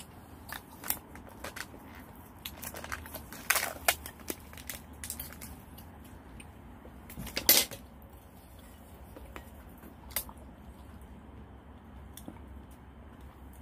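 Scattered clinks and knocks of metal cookware and utensils, a cluster of them a few seconds in and the loudest single knock about halfway through.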